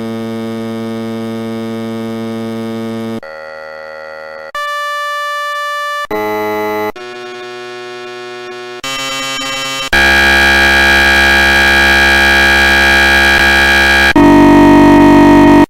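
A run of electronic beep tones played one after another: about eight different steady, buzzy beeps, each held for one to four seconds, switching abruptly in pitch and tone. The last two are the loudest.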